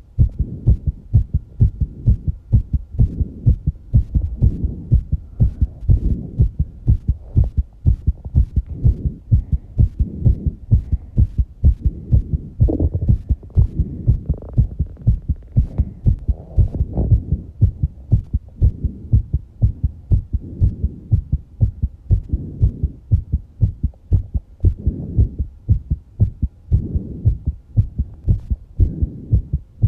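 A person's heartbeat, fast after exercise: rapid, evenly spaced low thumps, with softer breathing noise between the beats.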